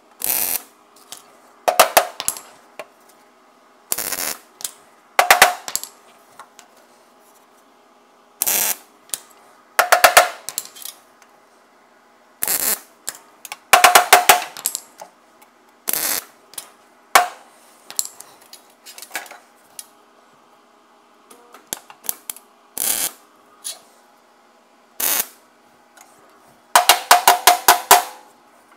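MIG welder making a series of short tack welds on steel chassis rail and patch panel: about a dozen brief crackling bursts every second or two, with several quick tacks in a row near the end.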